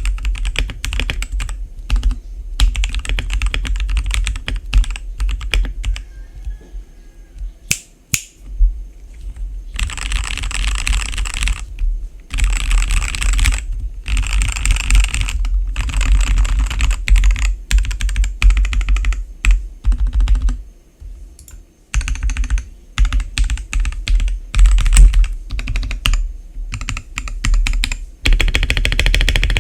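Royal Kludge RKG68 mechanical keyboard being typed on fast, its lubed RK red linear switches under stock keycaps, with the case foam-dampened. Quick runs of keystrokes, with short pauses a few seconds in and again past the middle.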